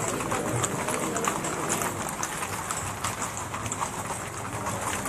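Hooves of many horses clip-clopping on a paved street as a mounted column walks past, a dense, irregular clatter of overlapping hoofbeats.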